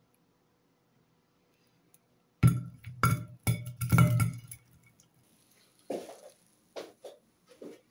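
Small filled toy balloons dropped onto a plastic plate: a quick run of dull thuds as they land, with the plate clattering, starting about two and a half seconds in, then a few lighter knocks.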